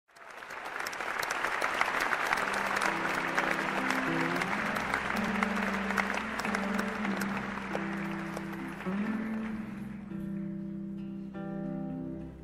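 Audience applause that dies away after about ten seconds while a band starts the song, with held low notes coming in under the clapping and guitar notes near the end.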